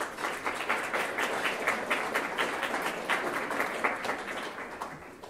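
Audience applauding, many hands clapping densely, dying away near the end.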